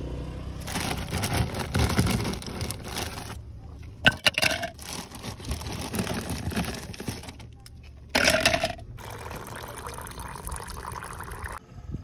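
Ice cubes being scooped out of a plastic cooler into a plastic tumbler: scraping and crunching, with two sharp clinks about four and eight seconds in.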